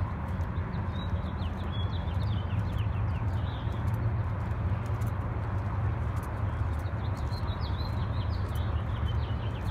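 Idling hot rod engines in a waiting line, giving a steady low, lumpy rumble. Birds chirp over it in two short spells, one near the start and one near the end.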